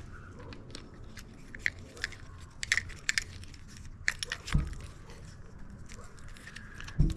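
Small metal parts and tools clinking and clicking as they are handled during bicycle repair, with two dull thumps, one midway and one near the end.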